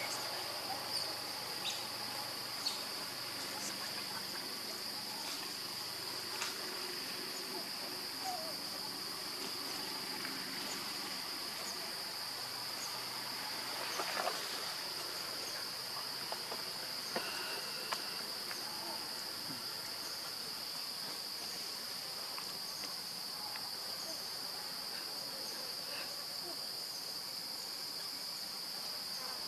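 Steady chorus of insects, a continuous high-pitched buzz, with a few small scattered clicks over it.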